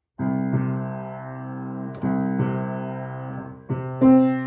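A Kawai grand piano played in several chords, each struck and left to ring before the next, with new chords starting about two seconds in and again near the end. The piano is not the most in tune.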